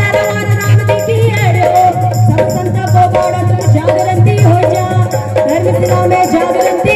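Kumaoni folk music through a stage sound system: drums keep a steady pulsing beat with a shaker-like rattle under a held melody line.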